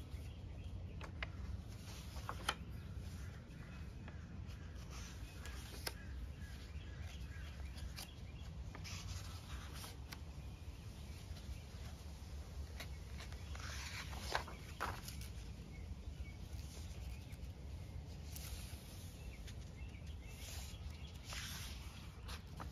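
Paper pages of a hardcover Dingbats journal being turned and smoothed by hand, rustling and flapping a few times, the loudest turn about two-thirds of the way in. Under it runs a steady low outdoor rumble with scattered faint ticks.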